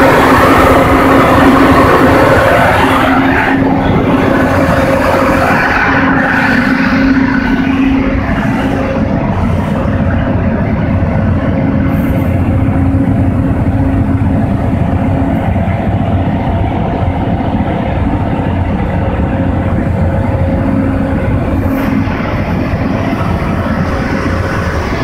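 The diesel engine of a Caterpillar XQ300 300 kW portable generator set running steadily: a loud, even drone with a constant hum in it. It is brighter in the first few seconds and then mellows.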